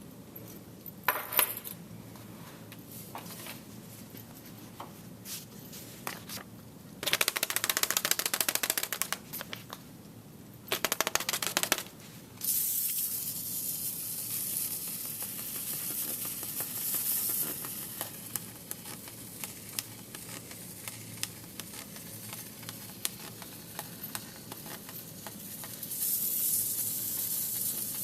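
Paper held against the spokes of a spinning bicycle wheel, flicked by each spoke in a fast clattering buzz. It comes in two loud bursts a third of the way in, then settles into a long, steadier hissing rattle that eases off and swells again near the end.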